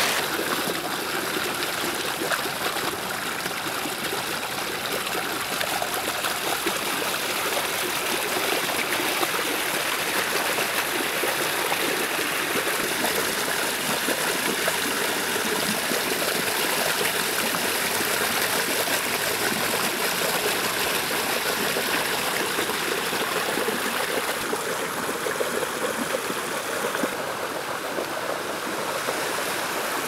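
Shallow water rushing and churning over stones, a steady unbroken wash of foamy water.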